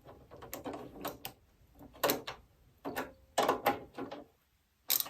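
Irregular clicks and knocks of a screwdriver and metal parts being worked while a graphics card is screwed into a PC case. The loudest knocks come about two seconds in, around three and a half seconds in, and just before the end.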